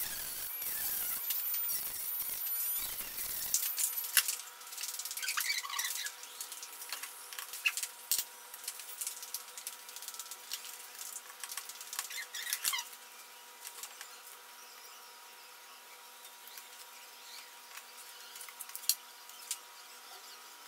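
A rotary tool's cutting disc grinding on the metal end cap of a cordless drill's small DC motor for about the first four seconds. Then scattered light metal clicks and scrapes follow as the end cap is pried off and the motor is taken apart.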